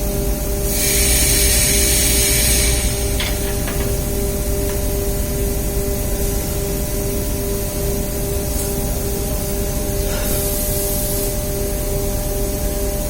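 Steady hum of running machinery with two short bursts of hissing spray, the first lasting about two seconds, starting about a second in, and a shorter one near the end.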